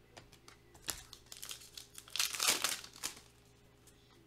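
Foil trading-card pack wrapper crinkling and crackling as it is handled and torn, with a sharp crackle about a second in and a denser burst of crinkling between about two and three seconds in.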